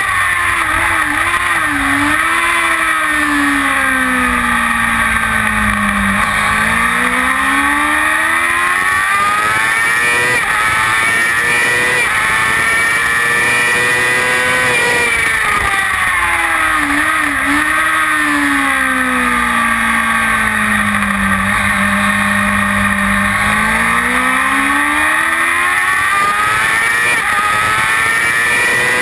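Kawasaki ZX-6R inline-four sportbike engine at racing revs, with heavy wind rush. Twice the engine pitch drops low as the bike slows for a corner, then climbs again in steps as it accelerates out.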